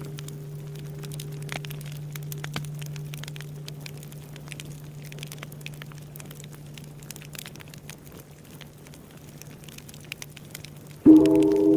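Bonfire crackling with scattered small pops, under the low hum of a large Buddhist temple bell (bonshō) dying away. About eleven seconds in, the bell is struck again: a sudden heavy strike that rings on in several tones.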